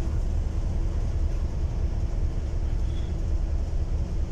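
Steady low rumble of a trailing suction hopper dredger at work, loading sand slurry into its hopper, with a faint steady hum over it.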